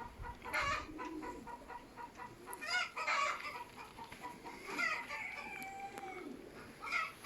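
Domestic chickens clucking in a series of short calls, with one longer held call about five seconds in.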